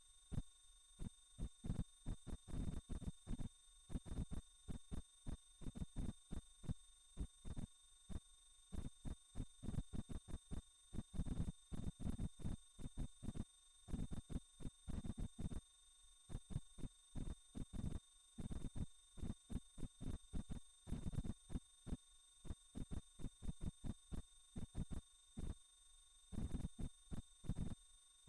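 A single very high-pitched pure electronic tone, steady in pitch and pulsing rapidly and evenly in loudness: a synthesized sine-wave 'healing frequency' tone.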